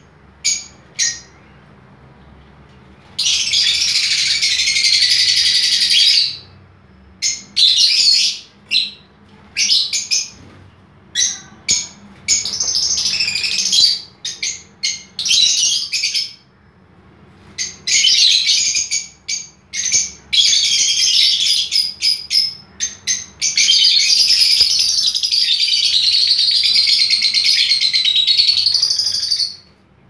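A flock of lovebirds calling: sharp single chirps scattered between long stretches of continuous shrill chattering.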